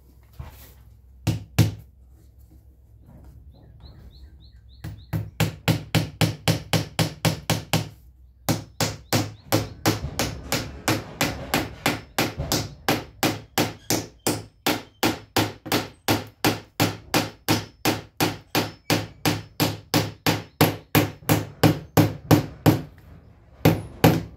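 A hammer tapping small nails into a wooden door frame to hold a pane of glass in place. It gives two taps, then a long run of quick, even strikes at about four a second, with a short pause about eight seconds in.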